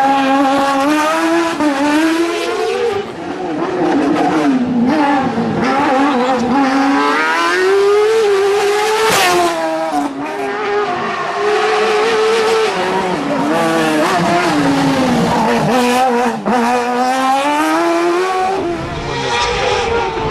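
Fiat 600 racing prototype with a Suzuki engine, revving high and hard, its pitch climbing and dropping again and again as it is driven through a cone slalom, with brief breaks where the driver lifts off.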